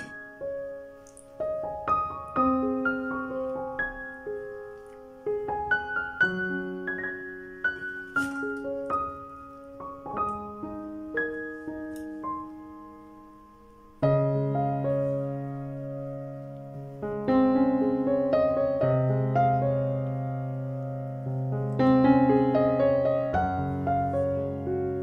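Background piano music: a slow melody of single notes, with fuller low chords coming in suddenly about halfway through.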